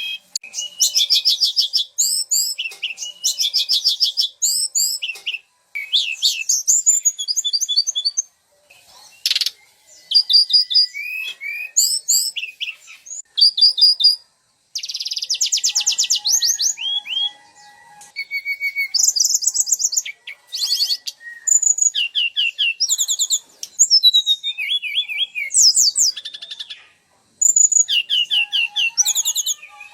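Songbird training recording: a dense run of rapid chirping trills, fast repeated notes and short whistled phrases from small songbirds, coming in bursts separated by brief pauses.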